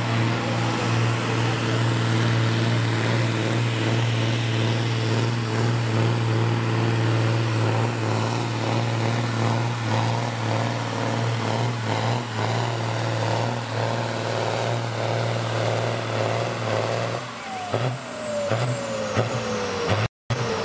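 Ford 7810 tractor's diesel engine running flat out at steady high revs under full load as it drags a weight-transfer pulling sled. A few seconds before the end the engine is let off and its pitch falls.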